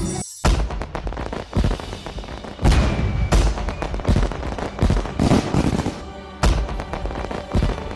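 Music cuts off just at the start, then fireworks go off: a string of booms and bangs, about one or two a second, each trailing off briefly.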